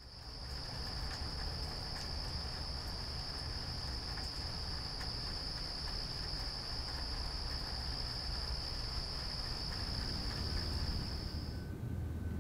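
Crickets trilling in one steady, high, unbroken tone over a low rumble, cutting off abruptly near the end.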